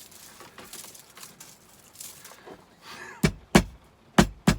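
Faint rustle of Ethernet cable being handled as its outer jacket is peeled, then four sharp knocks in quick succession starting about three seconds in.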